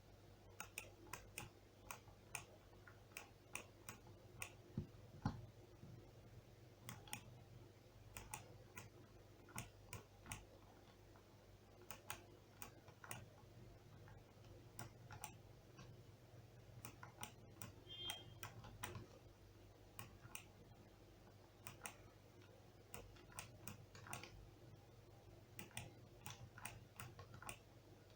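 Faint, irregular short clicks and taps, several scattered through every few seconds, over low room hum.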